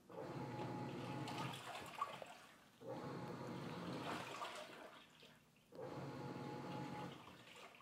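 Black+Decker portable top-load washing machine in its wash cycle: the motor drives the washer's agitation one way and then the other, sloshing the clothes and soapy water. Three strokes of about two to three seconds each, with short pauses between them, each carrying a faint motor whine.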